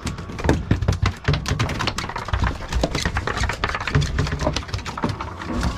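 Bonnethead shark thrashing on a fiberglass boat deck, its body and tail slapping in a rapid, uneven string of taps and knocks.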